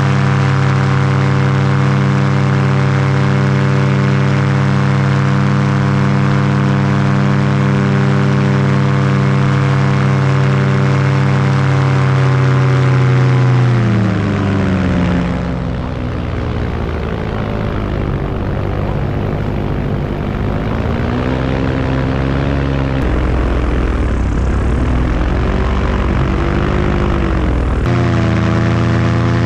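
Paramotor engine and propeller running at a steady high throttle. About halfway through it is throttled back: the pitch sags and wavers over a low rumble. Near the end it throttles back up to the higher steady pitch.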